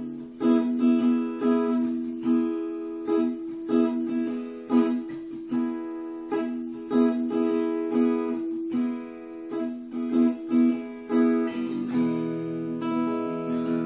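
Solo acoustic guitar playing a slow chord passage, chords plucked about twice a second with the notes left ringing.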